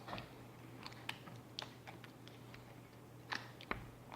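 Sticky slime being mixed and pulled, giving irregular small clicks and pops, the loudest about three seconds in.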